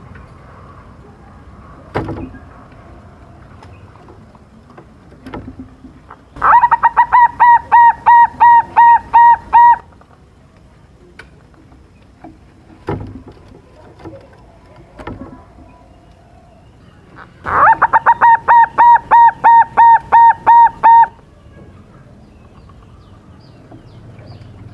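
Young silver-morph zebra dove (perkutut) singing two bouts of its rapid cooing song, each a run of about a dozen clear, evenly repeated coos at roughly four a second, lasting about three seconds. A couple of sharp knocks fall between the bouts.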